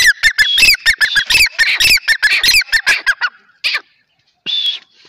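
Grey francolin calling close by: a fast run of short, sharp calls, about five a second, that breaks off about three seconds in, followed by two separate single calls.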